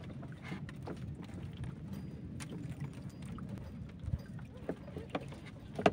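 Small wooden boat at rest on the water: a low, steady wash with scattered light knocks and clicks, and one sharper click near the end.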